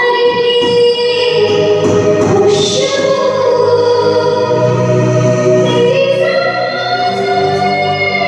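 Music with choir-like singing in long, held notes that move to new pitches every second or two.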